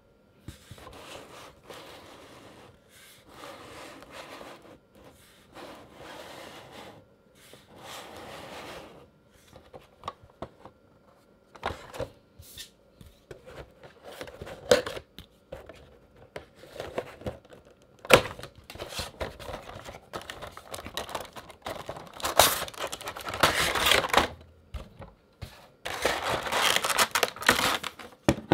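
A cardboard Funko Pop box being handled and opened: soft sliding and rubbing of the cardboard, clicks and tearing at the top flap, then loud crinkling of the clear plastic insert as the figure is pulled out near the end.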